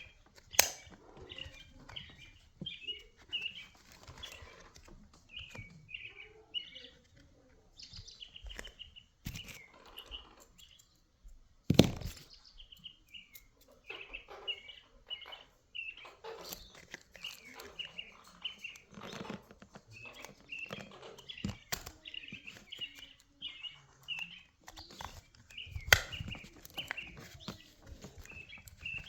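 Small birds chirping over and over in the background, with a few sharp clicks and knocks from hand work on the RC car, the loudest knock about twelve seconds in.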